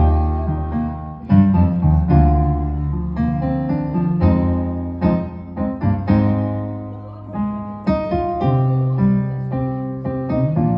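Keyboard music: slow chords struck about once a second over held low bass notes.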